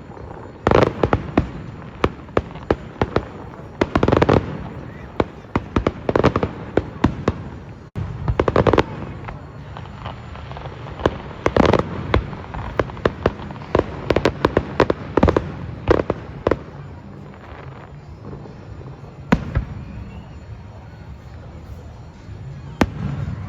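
Fireworks display: repeated sharp bangs and crackling bursts, densest and loudest in the first half, thinning out to scattered single bangs near the end.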